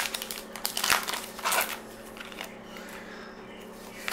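A 2019 Topps Gypsy Queen baseball card pack's wrapper being torn open and crinkled by hand, in about three short crackling bursts over the first two seconds, then only faint rustling as the cards come out.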